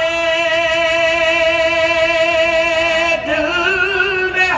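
A man singing a long held note with a slight waver, then shifting pitch about three seconds in and holding the new note.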